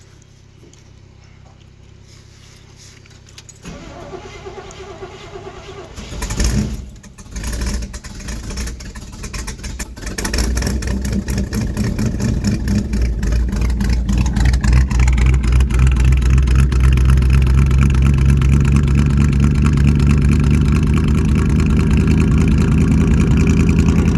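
Cold start of a 1971 Chevy C10's 350 V8 through cherry bomb glasspack dual exhausts. It cranks and fires about six seconds in, stumbles and runs rough for a few seconds, then catches and settles into a steady, louder idle from about ten seconds on. This is a hard-starting cold engine that needs choking.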